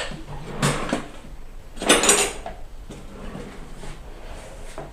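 Kitchen utensils clattering against a bowl and container as salt is measured out. There are two brief clatters, one about a second in and a longer, louder one about two seconds in.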